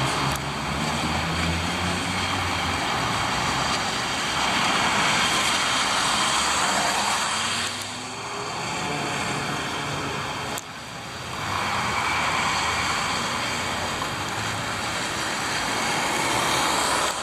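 Road traffic on a wet street. A heavy truck's diesel engine drones low in the first few seconds, then passing vehicles' tyre hiss on the wet road swells and fades twice.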